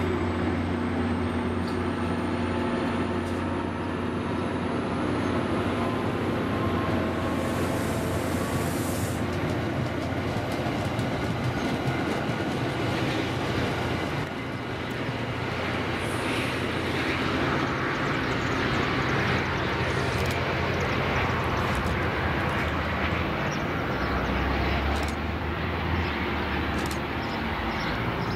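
MBTA commuter train led by a GP40-MC diesel locomotive rolling past and away: a steady low engine drone under the rumble of coach wheels on the rails, with scattered sharp clicks in the second half.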